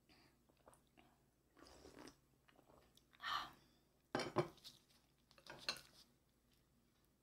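A glass mug of iced cola is set down on a wooden table with a few sharp clinks of glass and ice. A little later come lighter clicks of a plate as a gloved hand reaches into the fried chicken.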